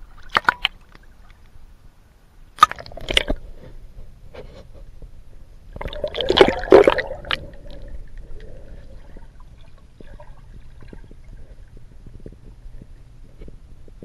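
Swimming pool water sloshing and splashing around a camera as it is handled and lowered under the surface, with sharp knocks in the first few seconds and the loudest splash about six seconds in. After that comes a muffled underwater sound: a low steady hum with faint scattered clicks.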